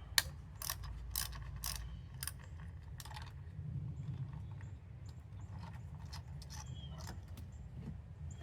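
Ratchet wrench with a 10 mm socket clicking as it loosens an ignition coil hold-down bolt, a run of sharp clicks about two a second at first, then fainter ticks.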